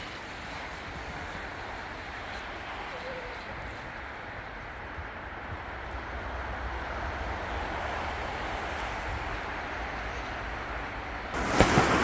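Steady rushing and hissing of a sled sliding down a snowy hill, slowly growing louder as it picks up speed. Near the end it turns suddenly much louder, with sharp scraping clicks.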